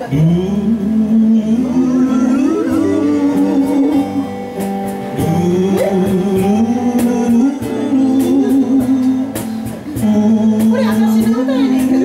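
A man singing into a microphone while accompanying himself on an acoustic guitar, holding long sustained notes.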